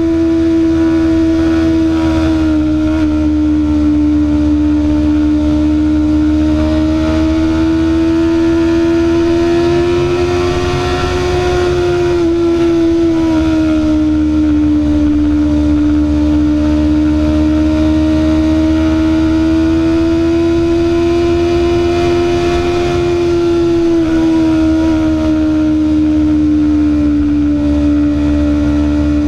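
BMW S1000RR's inline-four engine running at a steady cruise, heard from on board the bike. The engine note climbs slowly and falls back twice as the throttle is eased.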